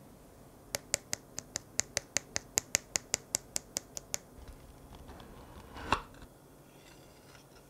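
A quick, even run of about eighteen sharp ticks, roughly five a second. Then, just before six seconds in, a knife is pressed down through the tart's crisp baked shortcrust shell with one sharp crunch.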